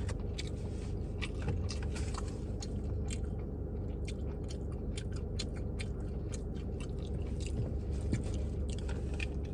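A person chewing food close to the microphone: irregular soft clicks and smacks of the mouth, over a low steady hum.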